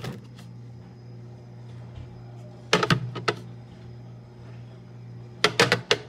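Plastic food tubs and a glass jam jar being set down and slid into place on a glass fridge shelf: short clusters of clacks and knocks about three seconds in and again near the end, over a steady low hum.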